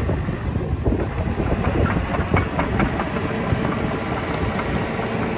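Hyundai R145LCR-9A crawler excavator's diesel engine running while the machine travels on its steel tracks, with rapid irregular clanking and clicking from the tracks, busiest in the first few seconds.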